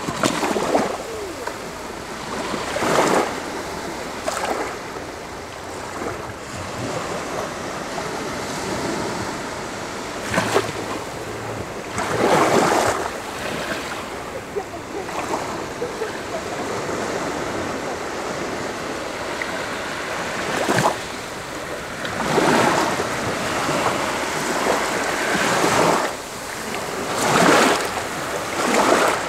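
Small Black Sea waves washing up a shallow sandy beach. A steady hiss of water swells into a louder, foamy surge every few seconds as each wave runs in and drains back.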